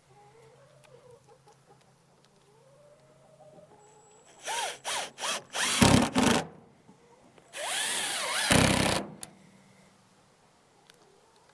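A power drill driving screws into a board: a few short bursts about four to six seconds in, then one longer run around eight seconds in whose motor pitch dips as the screw bites. Faint chicken clucking is heard before the drilling.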